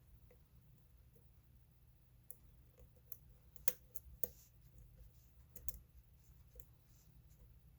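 Faint, irregular small clicks and ticks of a lock pick and tension wrench working the pin stack of an old Ace solid brass padlock during single-pin picking. Two sharper clicks stand out about halfway through.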